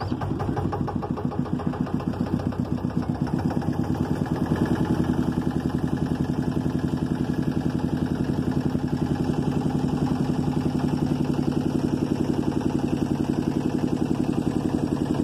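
Engine of a wooden motor boat running steadily with a fast, even beat, heard from on board; it grows a little louder about four seconds in.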